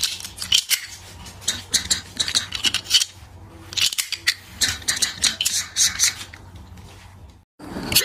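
3D-printed plastic gravity fidget knife being flicked open and shut: groups of sharp plastic clicks and rattles with short pauses between.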